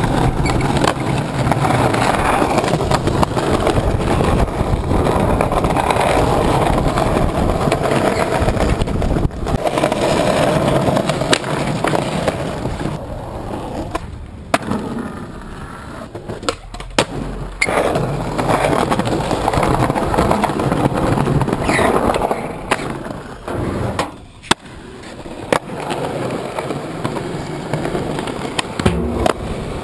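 Skateboard wheels rolling on concrete, with sharp clacks of the board popping and landing during tricks. The sound breaks off abruptly a few times as one take cuts to the next.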